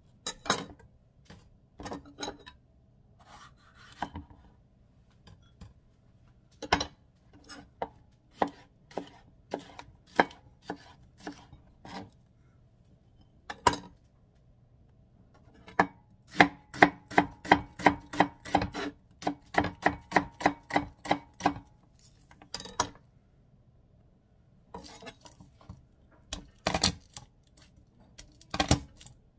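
Kitchen knife chopping and slicing vegetables (bell pepper, onion, garlic) on a plastic cutting board: sharp knocks, scattered at first, then a fast even run of about three cuts a second in the middle, and more near the end.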